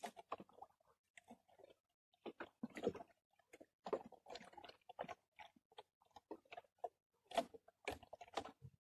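Close handling noise in a small boat: irregular clicks, crackles and light knocks as hands work the fishing gear.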